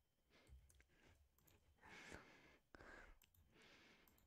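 Near silence, with a few faint computer mouse clicks and a soft breath.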